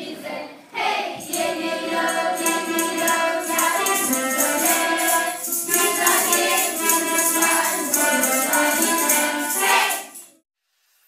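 Children's choir singing with acoustic guitar accompaniment and a jingling percussion keeping the beat; the music cuts off suddenly near the end.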